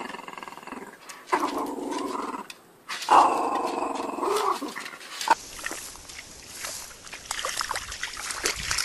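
Small dog growling in three long bouts while tugging at a ring toy. After about five seconds this gives way to wet scraping, clicking and splashing as a dog digs in mud.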